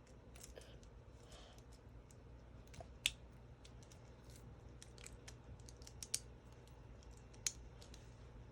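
Faint scattered clicks and snaps of a plastic Bakugan toy being twisted and folded by hand as it is transformed. Three sharper clicks stand out, about three, six and seven and a half seconds in.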